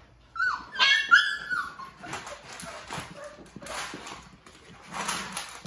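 Labrador retriever puppy giving a short run of high, gliding whines and yelps, followed by a few seconds of rustling and scuffling.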